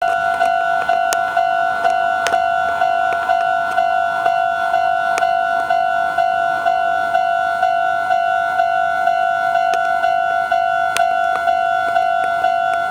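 Japanese railway level-crossing alarm ringing, an even two-tone ding repeating about twice a second, warning that a train is approaching.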